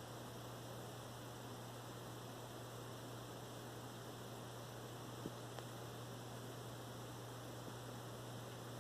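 Aquarium pump running: a faint, steady low hum with an even hiss over it, and a single small click about five seconds in.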